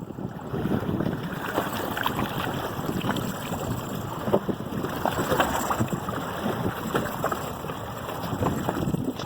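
Wind buffeting the microphone over water sloshing and slapping against a small fishing boat at sea, with scattered short knocks.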